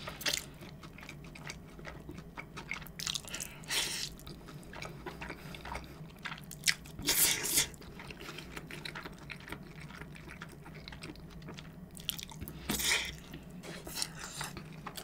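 Chewing a mouthful of cheesy Chicago-style deep-dish pizza: wet mouth clicks and smacks, with louder moments about four, seven and thirteen seconds in.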